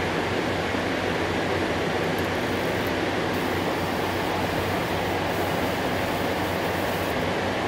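Steady rushing air with a low hum underneath from a powder-coating setup: the spray booth's fan pulling air through its filter and the powder gun's air flow while red powder is sprayed.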